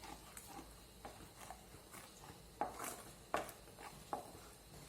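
A spoon stirring masala gravy in a pan, knocking and scraping against the pan in short, irregular clicks. The loudest knocks fall a little past halfway, with another near the end.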